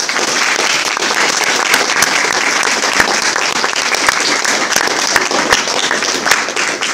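Audience applauding steadily right after a lecture ends, a dense mass of many hands clapping that starts suddenly.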